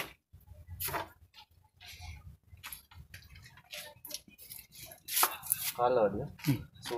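Scattered light clicks and knocks of fried crabs and a wire mesh strainer being handled, with a brief voice near the end.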